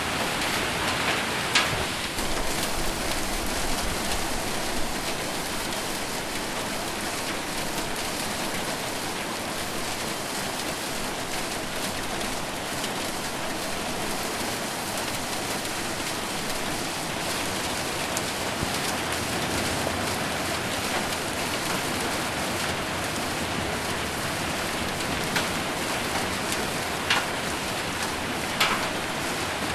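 Hard rain with hail drumming on a metal roof: a steady dense patter, with a few sharper, louder single hits standing out near the end.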